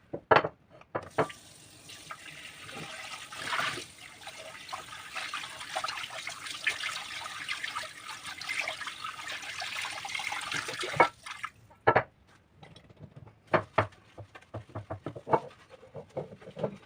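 Tap water running into a sink for about ten seconds, with sharp clicks and knocks of kitchenware being handled just before it starts and after it stops.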